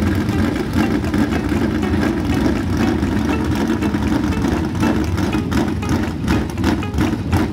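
Sprint car's methanol-burning V8 engine running loud at a steady pitch, its sound choppy and uneven.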